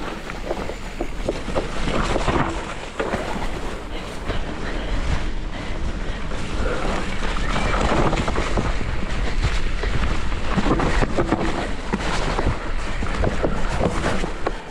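Wind rushing over the microphone of a mountain bike ridden fast down a wet trail, with frequent knocks and rattles as the bike goes over bumps.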